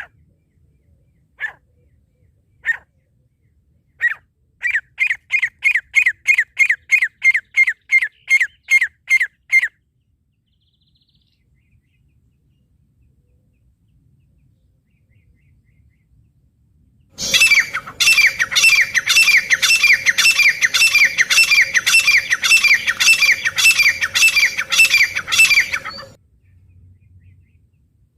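Grey francolin calling, the call used as a lure by francolin catchers. A few spaced single notes lead into a quick run of about fourteen short down-slurred notes. After a pause comes a louder, harsher run of repeated notes, about two a second, for some nine seconds, over a steady low hum.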